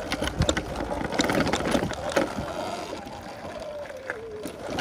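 Segway X260 electric dirt bike rattling and knocking as it rides over stone steps and dirt, with the thin whine of its electric motor falling in pitch as it slows in the second half.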